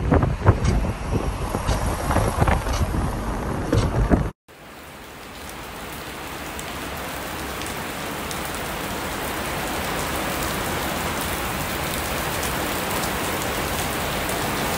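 Car driving, with gusty wind noise buffeting the microphone. About four seconds in the sound cuts to rain falling steadily, which fades in and grows gradually louder.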